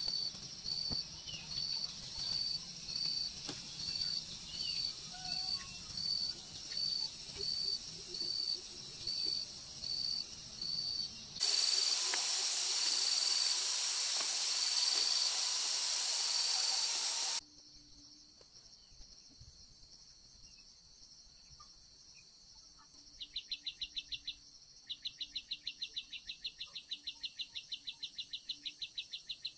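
Outdoor insect and bird sounds: a high, even chirp repeating about one and a half times a second, with scattered short bird chirps. A loud, steady hiss comes in suddenly for about six seconds and cuts off, and later a fast, high trill starts up in repeated bursts.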